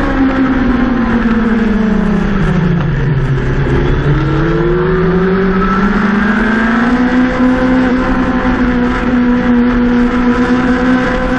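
Racing sport motorcycle engine at race pace, recorded from its own onboard camera, with wind noise: the engine note falls smoothly over about three seconds as the bike slows through a corner, then climbs back from about four seconds in and holds high as it accelerates out.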